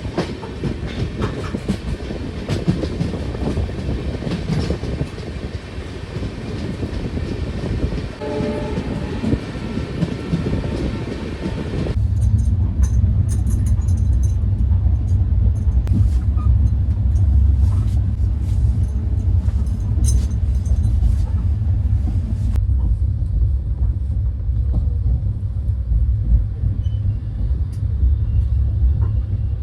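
Passenger train running on the rails with wheel clatter, and a horn sounding briefly about eight seconds in. From about twelve seconds in, a heavy steady low rumble takes over and the clatter fades.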